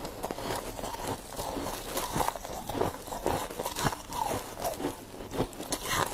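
A mouthful of humidifier frost being chewed close to the microphone: a steady run of crisp, icy crunches, about two or three a second.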